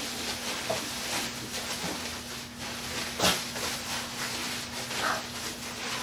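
Packaging and guitar being handled while unboxing: scattered small clicks and one sharp knock about three seconds in, over a steady low hum.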